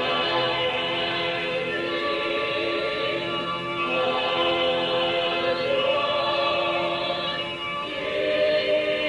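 Musical-theatre chorus singing held chords in harmony, moving to a new chord about four seconds in and again near the end.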